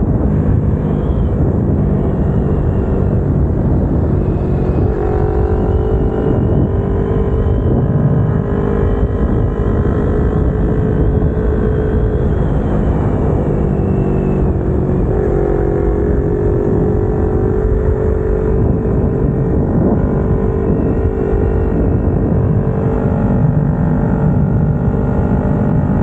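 Kawasaki Ninja 250R's parallel-twin engine running steadily under way, its pitch drifting gently up and down with small throttle changes, over a steady rushing noise.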